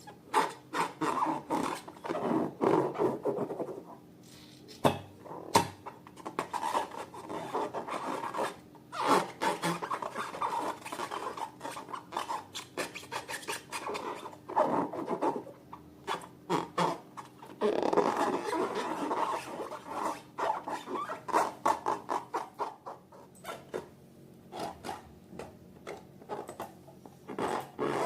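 Hands squeezing and stretching slime: irregular wet clicks and crackles mixed with rubbing, coming in bursts with short pauses between.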